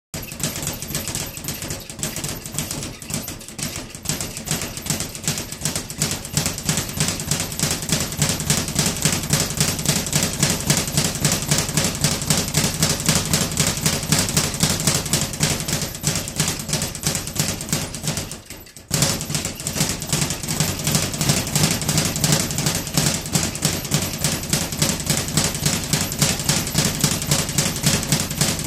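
Speed bag punched in a fast, steady rhythm, the bag rattling rapidly back and forth against its overhead rebound platform. The rhythm breaks off briefly about two-thirds through, then picks straight back up.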